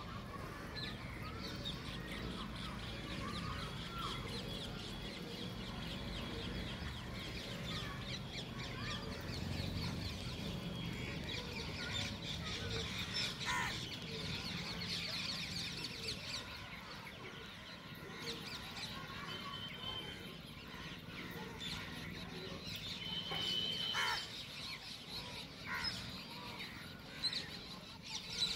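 A large flock of demoiselle cranes calling in flight, many overlapping calls at once, with a few louder single calls near the end.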